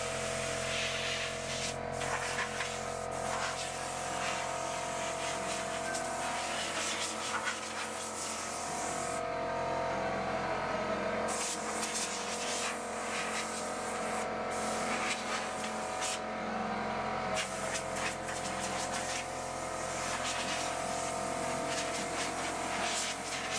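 A steady mechanical hum with a hiss over it, broken now and then by brief knocks.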